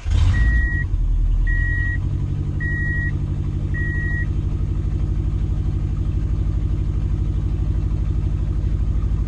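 Subaru Legacy GT's turbocharged flat-four engine starting, flaring briefly, then settling into a steady idle. A car warning chime beeps four times about a second apart over the first few seconds.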